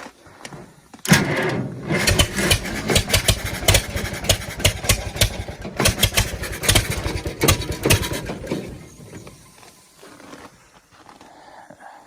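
Farmall 400 tractor's four-cylinder gasoline engine cranked on the starter for about seven seconds with uneven pulses, not catching, then winding down. It cranks but won't run, which the owner takes for a lack of fuel from a stuck or dirty carburetor.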